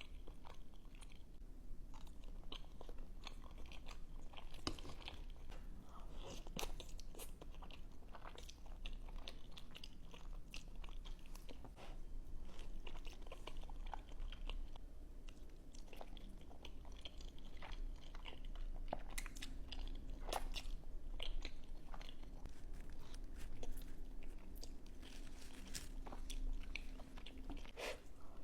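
Close-miked eating: a person biting and chewing crunchy food, with many irregular sharp crunches throughout.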